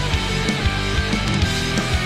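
Background rock music: distorted electric guitar and drums with a steady beat, no singing.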